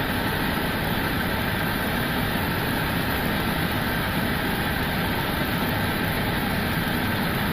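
Steady flight-deck noise of an Airbus A320 in flight on approach: an even, unbroken rush of airflow and engine sound.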